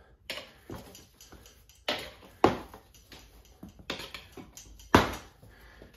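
Steel tire spoons clicking and knocking against the wheel rim and each other while a stiff dirt bike tire bead is levered onto the rim a small bite at a time. About half a dozen sharp metallic taps come at uneven spacing, the loudest near the end.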